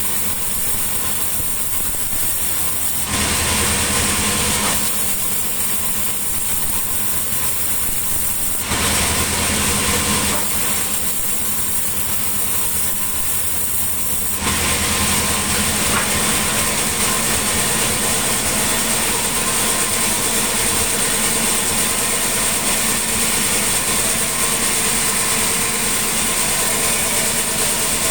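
Sawmill machinery running: a steady engine-driven hum with a high hiss over it, which changes abruptly several times in the first half and then holds steady.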